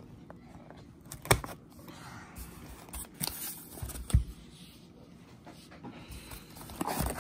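Scissors cutting through the packing tape along a cardboard mailer box, with scraping and rustling of the cardboard. Two sharp knocks come about a second in and about four seconds in, and a few more clatters near the end.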